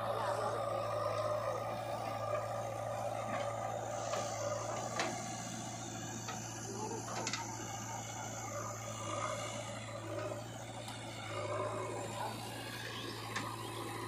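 Diesel engine of a JCB 3DX backhoe loader running steadily while it works its hydraulic digging arm, with a few sharp knocks.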